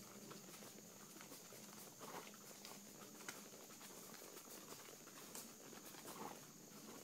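Faint, irregular hoofbeats of a horse moving during a riding lesson, over a steady hiss.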